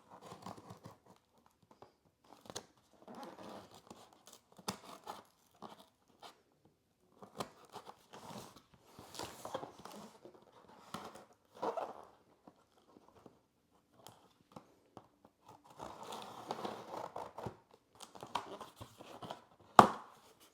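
Scissors cutting the packing tape on a cardboard box, and the box being opened: on-and-off scraping, tearing and rustling with scattered clicks. A sharp knock near the end is the loudest sound.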